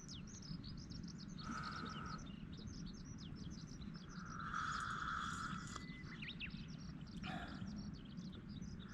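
Night-time outdoor chorus of small creatures: dense, rapid high chirping throughout, with a buzzing trill that comes and goes about every few seconds, longest around the middle.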